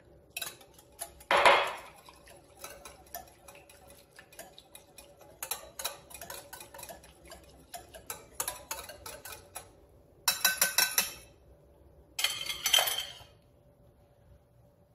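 Wire balloon whisk beating a frothy mixture in a glass bowl, its wires clicking rapidly against the glass. The clicking comes in bursts, with the loudest about a second and a half in and again from about ten to thirteen seconds in, then stops.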